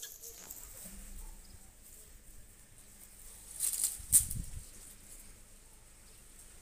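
Blue-and-gold macaw flapping its wings among leafy branches: one short, loud rustling burst about four seconds in, with only faint background sound around it.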